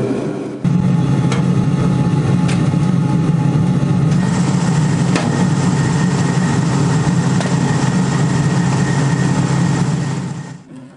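Machine tool motor and spindle running steadily under a machining cut, with a high whine joining about four seconds in; it winds down and stops near the end.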